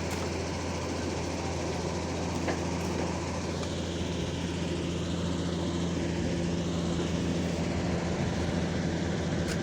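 Hitachi excavator's diesel engine running steadily with a low hum, growing slightly louder about halfway through.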